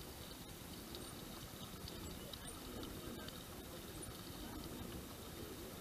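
Water lapping and splashing gently against a kayak hull, with a steady low wind rumble on the microphone and a few faint high chirps.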